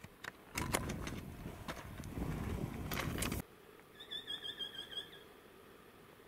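Crunching footsteps and trekking-pole clicks on a rocky trail, with wind rumbling on the microphone; they cut off abruptly about three and a half seconds in. Then a bird sings a short, wavering trill.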